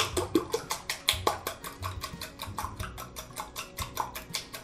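Wire whisk beating eggs in a ceramic bowl: rapid, regular clicks of the tines against the bowl, about seven a second.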